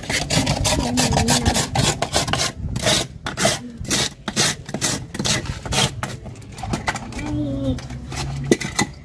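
Hand ice scraper rasping across a large block of ice in quick repeated strokes, shaving ice for a raspado (Mexican shaved-ice treat).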